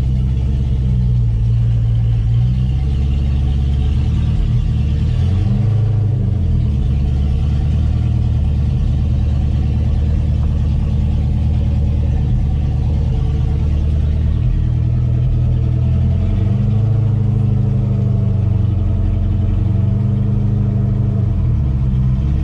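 LS-swapped Chevy C10's V8, built with a Texas Speed stage 3 turbo cam, running under way, its engine speed rising and falling several times.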